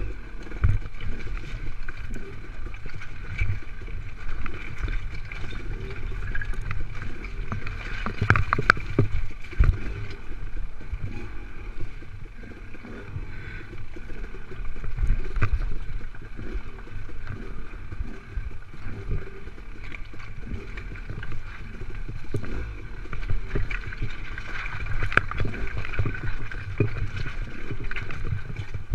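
Dirt bike engine running at low revs on a rocky single track, with frequent knocks and clatter from the tyres and suspension over loose rocks, heard through a helmet-mounted camera.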